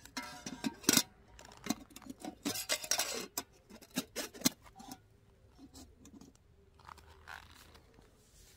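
Metal camp cookware clinking and clattering as it is handled, a dense run of knocks and clicks in the first five seconds, then only a few faint ones.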